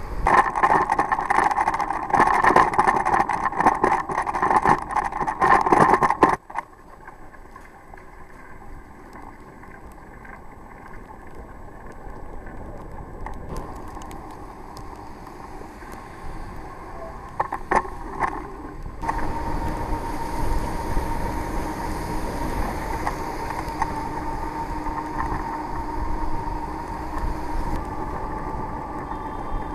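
Loud rushing rain and wind on a bike-mounted camera for about the first six seconds. After that comes a quieter, steady noise of traffic and tyres on wet streets. From about two-thirds of the way through, a steady hum joins in.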